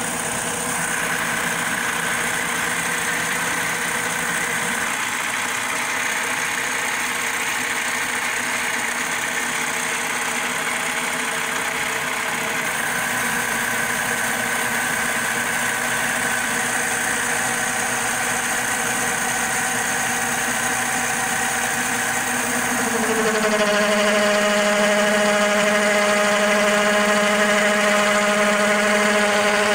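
CNC-converted Logan 12-inch lathe running under power, turning a metal pulley blank: a steady machine hum and whine with the sound of the cut. About 23 seconds in, it grows louder and its tones drop slightly in pitch and hold steadier.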